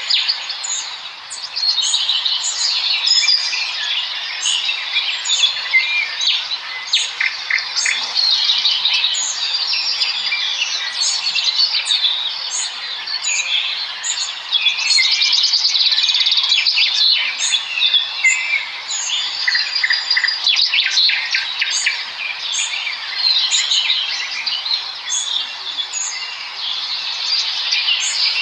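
A dense chorus of small birds chirping, trilling and chattering together without a break, with one short high note repeated about once a second throughout.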